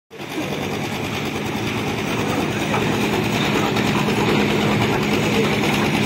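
Engine of a concrete mixer running steadily with a rapid, even beat, driving the turning mixer drum.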